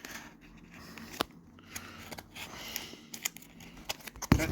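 A delivery package being worked open by hand: scattered clicks, scrapes and rustling of the packaging, with a louder thump near the end.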